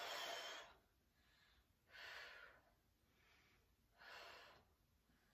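A woman breathing in a steady rhythm through glute bridge reps: three strong breaths out about two seconds apart, the first the loudest, with fainter breaths in between. The breaths out go with each lift of the hips, as she cues it, exhaling and drawing the core in and up.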